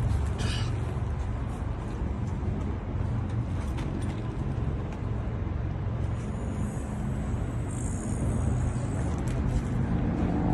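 Deep, muffled bass from a large sound system's speakers during a sound check, a steady low rumble with no clear melody on top.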